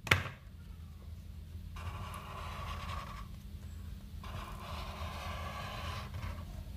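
A black whiteboard marker scratching across paper in two long strokes as it traces the sides of a triangle, after a sharp click at the very start.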